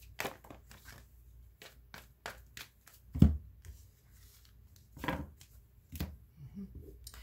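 Tarot cards being handled and laid down on a table: a scatter of light taps and slaps, with one heavier thump about three seconds in.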